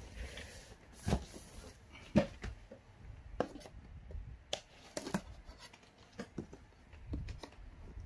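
Handling noise from a cardboard box: scattered knocks and taps, with a brief rustle about a second in.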